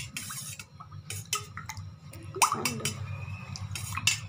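A spoon clinking and knocking against a bowl in irregular strokes, with small drips and splashes of water, as coriander paste is spooned into water.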